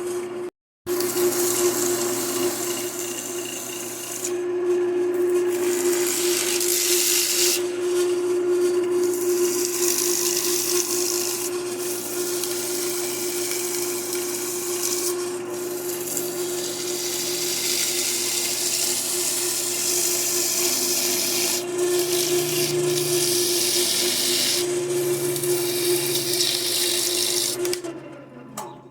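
Wood lathe running with a steady motor hum while a hand-held tool cuts into spinning aluminium, a harsh scraping hiss that swells and eases as the cut goes on. The sound stops near the end.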